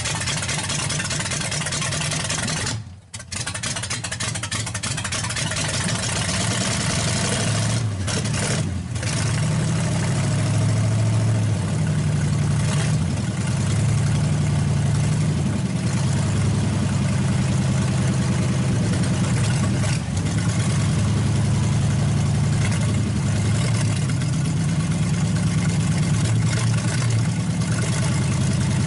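V8 engine running on open headers with no mufflers, just after being started, while its carburetor is worked by hand. It almost dies about three seconds in, stumbles again briefly near eight seconds, then settles into a steady, slightly louder idle.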